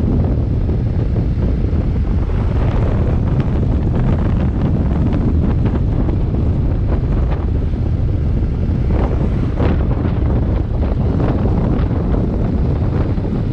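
Steady wind noise buffeting the microphone of a moving motorcycle, a dense low rumble throughout.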